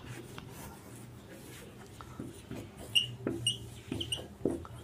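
Faint rubbing of a whiteboard being wiped, then a marker writing on it in short strokes with several brief high squeaks from about two seconds in.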